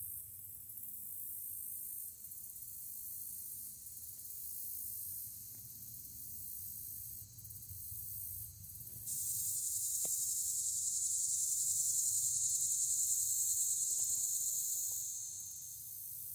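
Steady high-pitched insect buzzing that grows louder about nine seconds in and eases back down near the end, with a faint single tick partway through.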